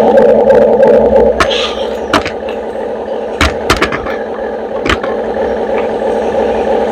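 RC excavator running with a steady motor whine while it levels the ground, with several sharp clicks and knocks as it works.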